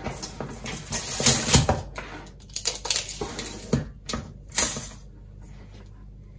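Coax cable being lifted and laid along a tape measure on a wooden worktop: irregular rustles, taps and light knocks of the cable on the wood, dying away about five seconds in.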